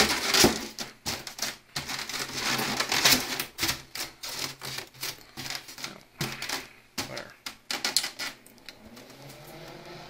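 Hands handling a foam (polystyrene) cooler lid close to the microphone: irregular clicks, knocks and rubbing. They stop about eight and a half seconds in, leaving a faint steady hum.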